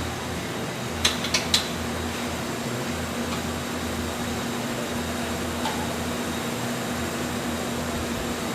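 Steady mechanical hum of a fan or air-conditioning unit with a constant low drone, and three sharp clinks in quick succession about a second in.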